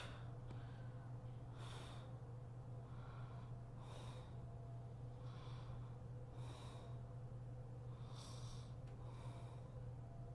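A sleeping woman's faint, heavy breathing, one breath about every second or so, over a steady low hum.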